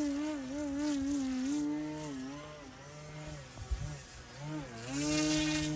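Electric motor and propeller of an E-flite Timber X RC plane buzzing in flight, its pitch wavering. The pitch sags and the sound fades through the middle as the throttle comes back, then rises again about five seconds in.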